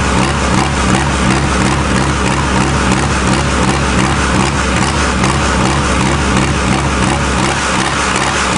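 Diesel engine of a mini pulling tractor idling steadily with an even low beat, still cold and freshly started.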